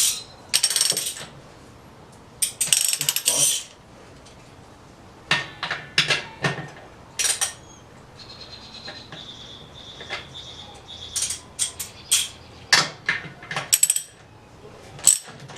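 Hand socket ratchet clicking in short runs as fasteners are turned, with separate sharp clinks of metal tools and parts in between.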